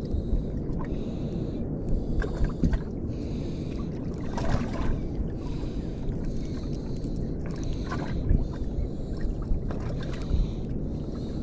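Wind buffeting the microphone in a steady low rumble, with water slapping and splashing against the hull of a small boat every second or so.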